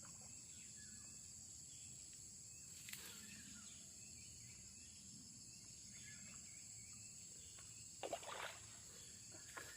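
Quiet riverside ambience: a steady high-pitched drone of insects, with a faint click about three seconds in and a short, slightly louder sound about eight seconds in.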